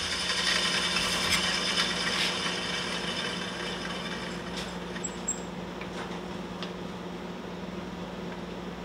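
Fingerboard radius sanding machine humming steadily and slowly fading as it winds down, with a few light metal ticks.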